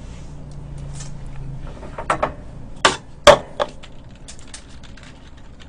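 A few sharp knocks on a hard surface, about five within two seconds with the loudest a little past three seconds in, followed by a run of light, quick clicks.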